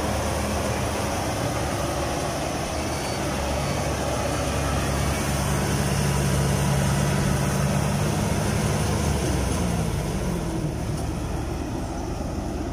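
A Kubota crawler combine harvester's diesel engine runs hard under load as the machine works through deep rice-paddy mud. The steady engine note drops in pitch about ten seconds in as the revs come down.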